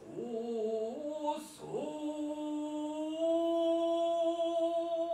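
A man chanting in Japanese biwa-gatari style with no accompaniment: a few short stepping notes, then one long note held and slowly rising in pitch.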